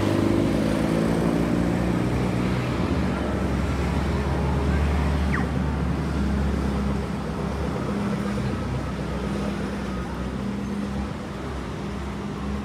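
Road traffic on a wet road: a heavy vehicle's engine running with a steady low drone over the hiss of tyres, easing off a little near the end.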